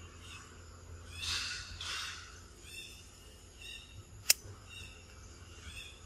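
Outdoor forest ambience: short high chirps repeat every second or so, with two brief soft swishes about a second and two seconds in. A single sharp click a little past four seconds is the loudest sound.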